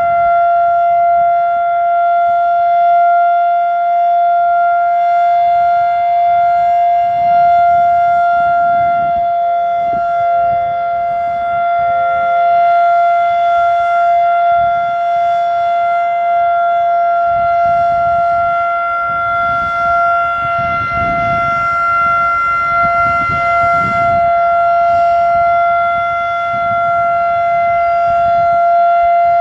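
Federal Sign & Signal Model 5 warning siren sounding its full-alert steady signal at full speed: one loud held pitch with overtones that stays level, with a slight waver about two thirds of the way in.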